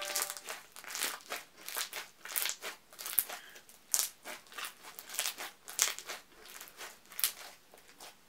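Clear slime studded with beads being squished and worked in the hands, giving a run of sharp, irregular clicks, about two a second.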